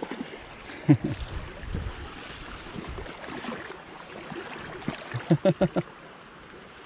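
Steady rush of creek water, with a brief vocal sound about a second in and a quick run of four or five short voiced pulses a little after five seconds.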